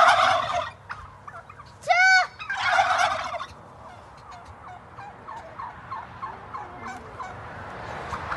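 Flock of domestic turkeys gobbling: a loud burst of gobbling at the start and another about two and a half seconds in, then softer, quick calls from the flock.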